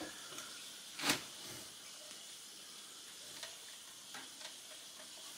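Faint steady hiss with a single light knock about a second in and a few faint ticks; no saw is running.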